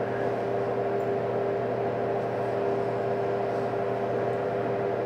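A steady machine hum with a constant tone over an even hiss, from a running household appliance's motor or fan.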